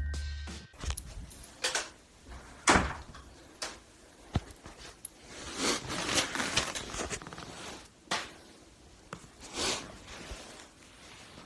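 Scattered knocks, bumps and rustles of a phone being handled and moved about in a small room. The tail of a music jingle cuts off just under a second in.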